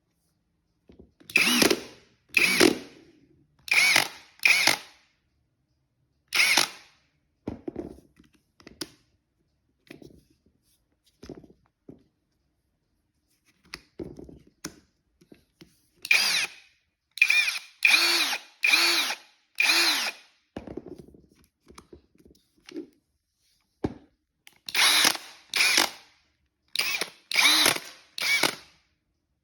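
Aldi Ferrex drill run in second gear in a series of short trigger pulls, each about half a second, the motor whining up and winding down each time, with quieter brief blips in between. The drill makes a rattling in second gear.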